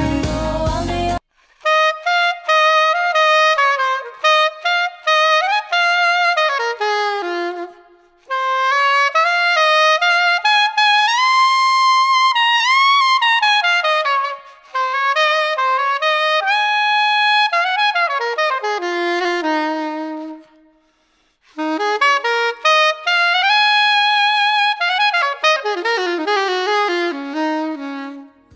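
Yanagisawa SC-992 bronze curved soprano saxophone playing a melodic line solo, close-miked on a Neumann U 67 with a little reverb and gentle compression. The full band backing cuts out about a second in, leaving the saxophone alone in phrases with short breaths between them.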